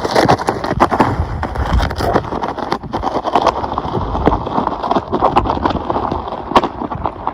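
Digging in soil by hand: a digging tool repeatedly scraping and striking dirt, with many irregular knocks and crunches over a continuous rough noise.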